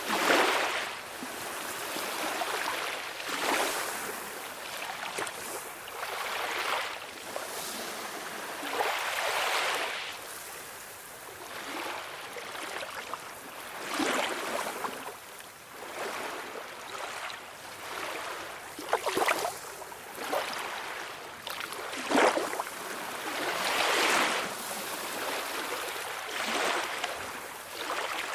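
Small waves washing and splashing onto a shore, swelling and easing every two to three seconds.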